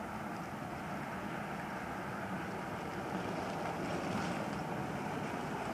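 Steady wind rushing on the microphone over outdoor street noise, growing a little louder in the second half as the quiet direct-drive electric Jeep approaches.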